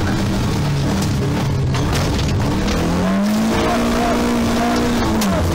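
Lada VFTS rally car's four-cylinder engine, heard from inside the cabin, under hard driving on a rally stage. The revs climb about three seconds in and hold high, then drop sharply just before the end.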